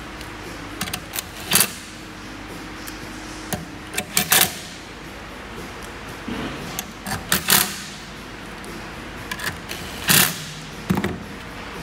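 Cordless drill-driver running in short bursts, driving screws that fix metal mounting brackets to a car stereo head unit's chassis. There are four loud bursts a few seconds apart, with small clicks and clinks of screws and metal between them.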